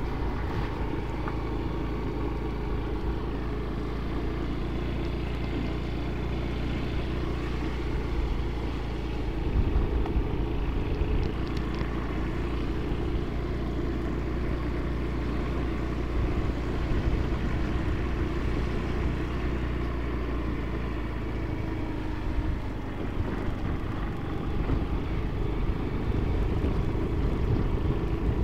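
Yamaha Mio automatic scooter running steadily while being ridden along a rough rural path, its engine mixed with wind and road noise on the microphone. It gets briefly louder about ten seconds in.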